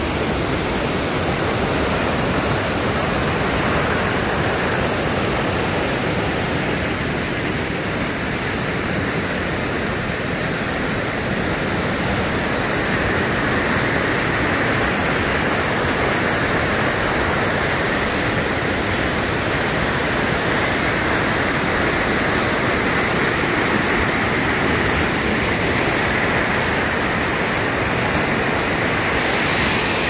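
Creek water pouring over rock chutes and small waterfalls: a steady, loud rush. The creek is running high and fast after a day of rain.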